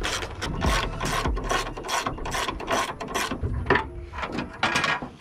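Hand socket ratchet clicking in steady strokes, about three a second, as it turns a hood hinge bolt. The ratcheting stops a little over three seconds in, followed by a few scattered knocks.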